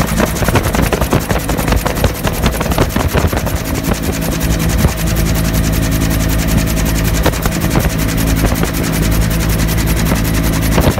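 Bell UH-1 Huey helicopter in flight, its turbine and rotor running steadily, heard from the open cabin door, with irregular gusts of wind noise buffeting the microphone.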